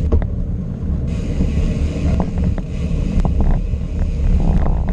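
Wind buffeting the microphone of a camera riding along on a moving bicycle: a steady low rumble with scattered clicks and rattles, and a hiss joining in about a second in.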